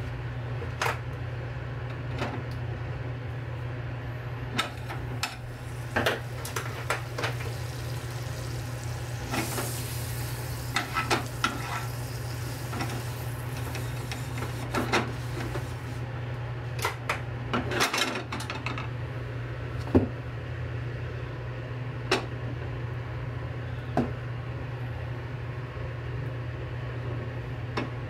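Kitchen utensils and dishes clicking and knocking now and then over a steady low hum, with a hiss for several seconds near the middle.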